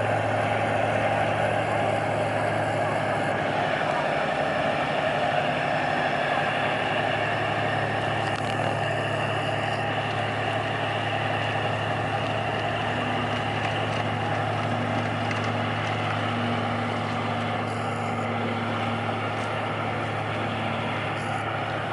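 Tugboat's diesel engine running steadily under load, a constant low hum that slowly fades.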